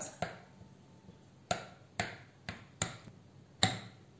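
Metal fork pricking puff pastry lining a glass baking dish: about six sharp taps at irregular spacing as the tines stab through to the dish.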